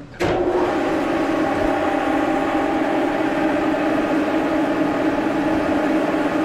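Brown & Sharpe No. 2 plain standard milling machine started with its lever: a clunk as it engages about a quarter second in, then the spindle drive and gear train running at a steady speed with an even hum. The machine is being run to oil itself.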